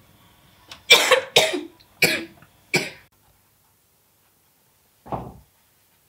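A person coughing, four short harsh coughs in quick succession, followed a couple of seconds later by one dull low thump.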